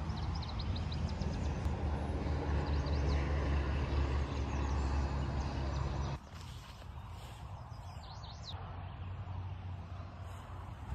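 Outdoor ambience: small birds chirping in quick bursts over a steady low hum, which cuts off abruptly about six seconds in, leaving fainter background noise with a few more chirps.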